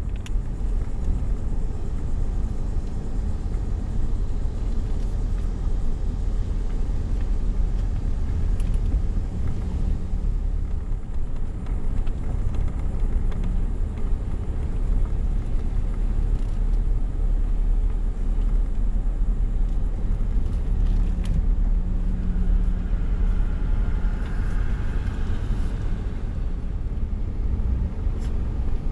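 Steady low rumble of a car's engine and tyres heard from inside the cabin while driving slowly.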